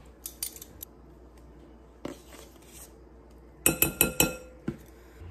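Metal measuring spoon clinking against the rim of a glass mixing bowl while cornstarch is spooned in: a quick run of sharp, ringing clinks about three-quarters of the way through, with lighter handling clicks and a short scrape earlier.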